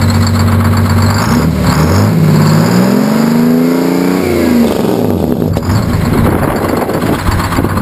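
1959 GMC truck's Detroit Diesel two-stroke engine idling, revved up once starting about a second in, then falling back to idle about five seconds in.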